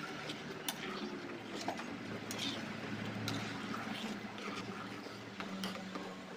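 Silicone spatula stirring hot coconut milk in a pan: soft liquid swishing with scattered light clicks of the spatula against the pan, over a faint steady low hum. The coconut milk is nearly at the boil.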